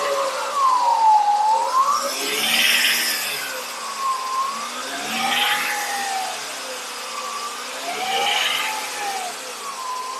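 Toyota Camry engine being revved up and let back down every three seconds or so, with a rattly ticking at each rev peak. The mechanic puts the ticking down to a loss of oil pressure, possibly from a cracked upper oil pan.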